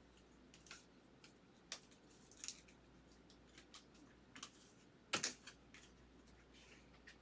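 Faint, scattered light clicks and taps with soft rustles, from baseball cards and their plastic holders being handled and laid out on a table; the loudest is a quick pair about five seconds in.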